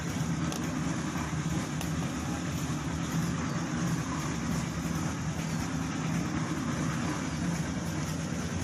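An engine idling: a steady, even low hum.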